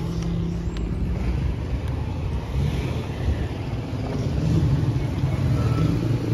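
Road vehicle engine running close by: a steady low hum that gets a little louder in the second half.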